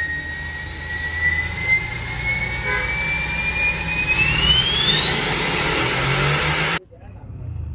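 Mercedes-Benz E63 AMG twin-turbo V8 pulling under acceleration: a low engine rumble under a high whine that holds steady, then climbs sharply in pitch as the revs rise. The sound cuts off suddenly near the end.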